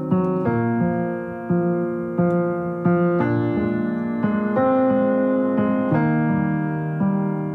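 Background piano music: notes and chords struck about every half second to a second and left to ring.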